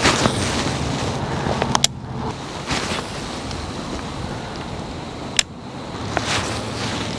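Steady wind rumble on the microphone with a few louder rushes, and two sharp clicks, about two and five seconds in, from a baitcasting rod and reel being cast and worked.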